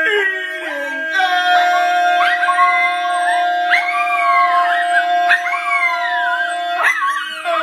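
A dog howling along in rising and falling cries while a voice holds one long steady note for about six seconds, the note ending about seven seconds in.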